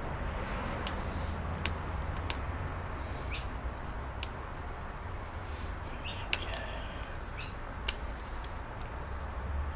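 Scattered light clicks of small parts and tools being handled, a few seconds apart, over a steady low hum, with short bird chirps in the background about a third of the way in and again near the end.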